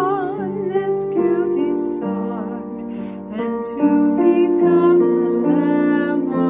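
A woman singing a praise song in held notes with vibrato over sustained keyboard chords.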